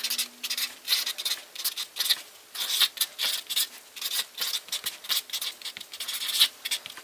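White marker pen scratching across a black writing board in quick, irregular strokes as words are written by hand.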